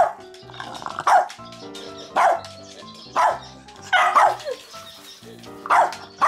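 A Cavalier King Charles spaniel barking repeatedly, a short bark about once a second, over background music.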